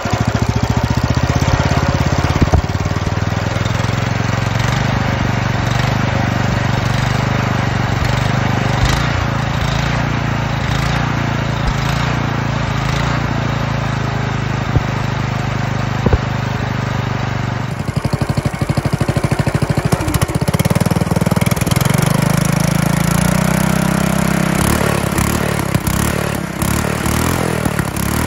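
420cc single-cylinder four-stroke small engine running steadily through its stock muffler. After a cut, the same engine runs through an all-stainless performance exhaust; it is revved up for a few seconds and then eased back down.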